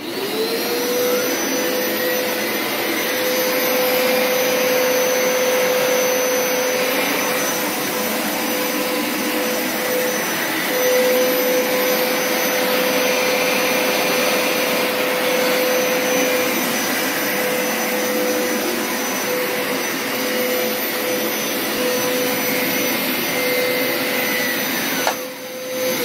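Hoover Power Scrub Deluxe FH50150 carpet washer's suction motor spinning up and running steadily with a whine, pulling excess water out of the carpet on a drying pass with the solution trigger not pressed. It is switched off about a second before the end and its pitch starts to fall.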